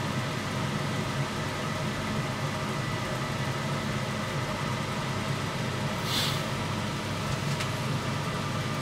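Steady low mechanical rumble, with a short hiss about six seconds in.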